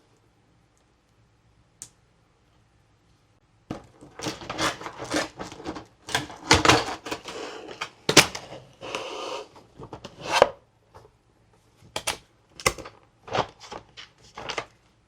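Toy packaging and plastic pieces being handled: crackling and clicking, with one click early and then a dense run of crackling from about four seconds in to ten. It ends with several separate sharp clicks.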